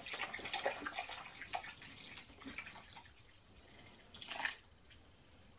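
Water poured from a plastic jug into a stainless steel stockpot already holding liquid, splashing and trickling. The pour thins out after about three seconds, with one short louder splash near the end.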